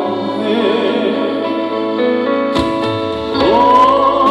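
Live trot song with a band: a male singer ends a sung line, then the keyboard-led accompaniment plays on. A crash about two and a half seconds in brings in a melody line that slides up to a held, wavering note near the end.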